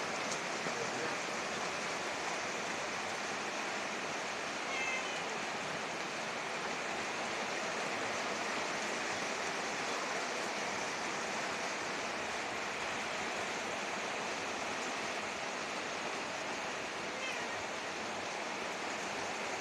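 Heavy rain pouring steadily in strong wind, with a cat meowing briefly twice: once about five seconds in and once near the end.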